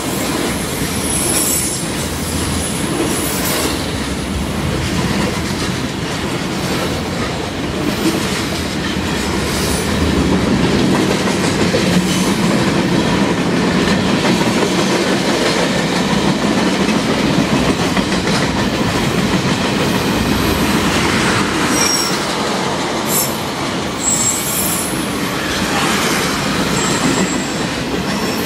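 Long freight train of autorack and hopper cars rolling past: a steady rumble of steel wheels on rail, with clicks at the rail joints and a few brief high wheel squeals.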